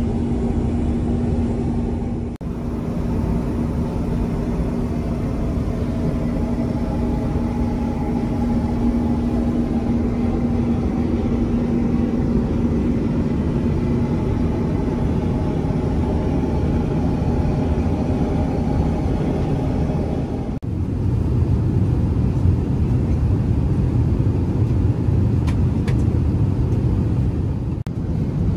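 Steady in-flight cabin noise of an Airbus A380 at cruise: low rumble and airflow hiss, with a steady hum that fades out around the middle. After a cut about two-thirds through, the rumble becomes deeper.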